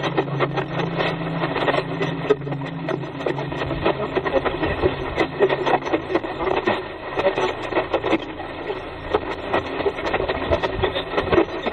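Continuous crackling, rustling noise, thick with small clicks, with a low steady hum underneath near the start.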